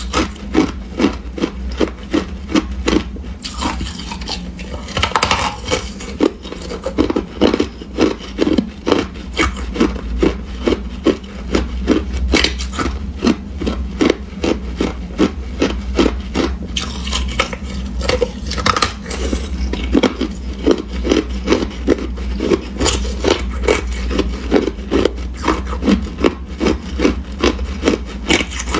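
Hard ice being chewed close to the microphone: a steady run of crunches, about two or three a second.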